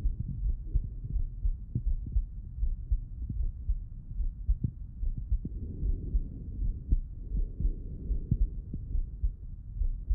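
Male heartbeat heard through a Littmann stethoscope: repeated low thuds.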